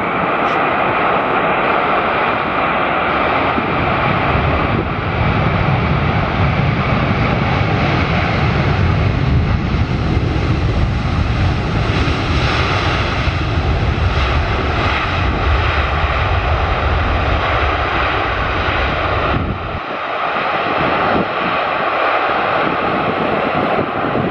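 Boeing 747-400ERF freighter's four jet engines during touchdown and landing rollout: a loud steady jet roar. A deep rumble builds a few seconds in and drops away suddenly near the end, leaving the lighter roar of the engines as the jet slows.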